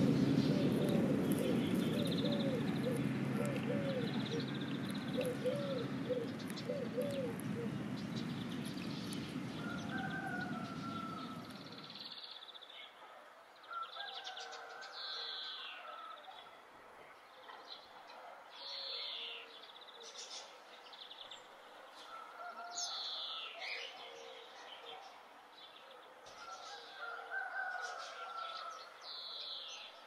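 Birds calling: short chirps and sharp falling whistles, repeated every few seconds. For the first twelve seconds a louder low rumbling noise with a quick run of short repeated notes lies under them, and it cuts off abruptly.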